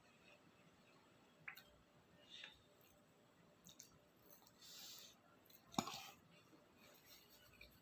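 Quiet mukbang eating sounds from takoyaki: faint chewing with a few small clicks and a short soft noise, the sharpest click about six seconds in.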